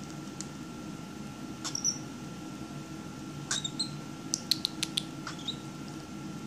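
Young cockatiel cracking seeds in its beak: sharp little clicks, a few about two seconds in and a quick cluster from about three and a half to five seconds, some with a brief high squeak.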